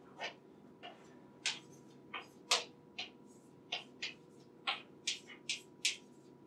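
Chalk writing on a blackboard: about a dozen short, irregular taps and scrapes, one or two a second, as symbols are chalked up.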